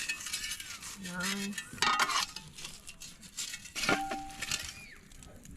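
Metal clinking and scraping as a jaffle iron is worked into hot campfire coals, with a cluster of clinks about two seconds in and one sharp clank about four seconds in that rings on for about a second.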